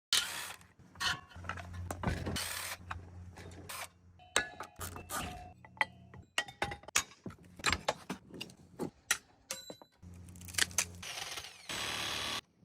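Scrap metal parts from a dismantled electric motor clanking and clinking as they are handled and dropped, many quick knocks, some ringing briefly, over a low hum.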